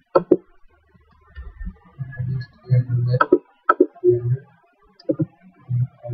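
A few sharp computer mouse clicks, over low, indistinct voices in the background.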